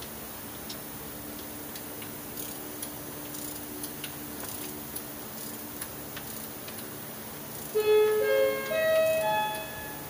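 A steady low hum with faint scattered ticks, then about eight seconds in a short electronic melody of single clear notes, mostly stepping upward in pitch, lasting about two seconds.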